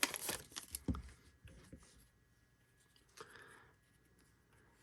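Plastic wrapper of a baseball card hobby pack crinkling as it is torn open, dying away within the first second, then a soft low thump and a couple of faint rustles of cards being handled.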